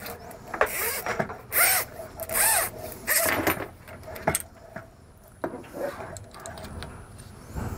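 Braided faucet supply hoses rubbing and scraping against each other and against a washer as they are worked through it, in several short bursts of handling noise.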